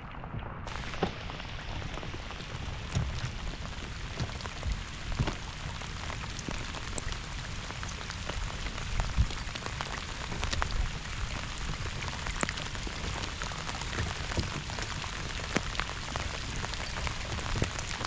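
Steady rain falling, with many separate drops ticking throughout and a low rumble underneath.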